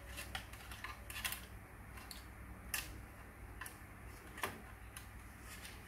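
Light, irregular clicks and taps of the Huina 1573 RC dump truck's hollow plastic chassis as its wiring is handled and pulled, with a few sharper clicks, over a faint steady low hum.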